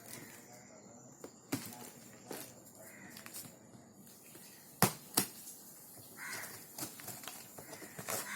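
Sharp knocks and clicks from handling cardboard packaging, with two loud knocks close together about five seconds in.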